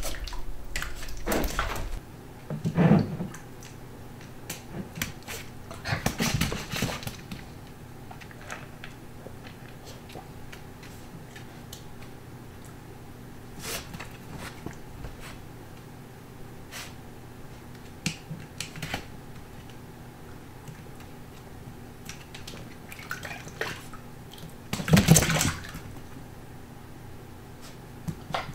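Corgi puppy playing in its water bowl: scattered splashes and knocks of water and bowl, the loudest near the end, over a steady low room hum.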